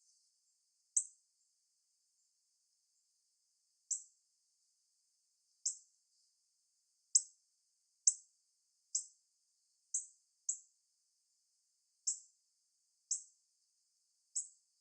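Female northern cardinal giving sharp, high chip calls: about eleven single notes, each a quick downward sweep, spaced a second or more apart at first and coming faster in the middle.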